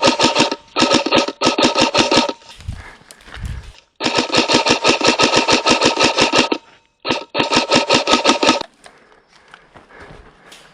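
Airsoft gun firing rapid full-auto bursts, five in all: three short ones at first, then a long burst of about two and a half seconds and a shorter one. The firing stops just before the end, leaving faint rustling.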